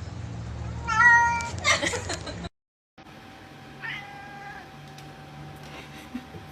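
A cat meowing: one call about a second in, and another about four seconds in after a cut to a different clip. A faint steady hum runs under the second part.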